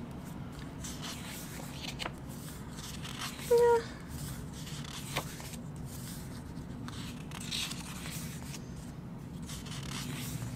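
Pages of a paper album photobook being turned and handled by hand: soft rustling and sliding of paper, with a few light clicks, over a low steady hum. About three and a half seconds in, a short pitched tone cuts in briefly and is the loudest sound.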